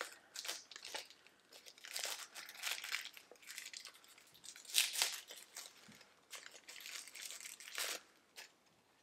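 Crinkling and crackling from hands working at a Play Foam Pals toy and its packaging, in short irregular strokes with brief pauses, loudest about halfway through.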